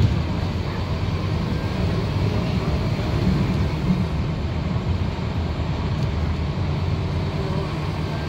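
Scania K230UB single-deck bus heard from inside the passenger saloon while under way: the five-cylinder diesel engine running steadily, with tyre and road noise.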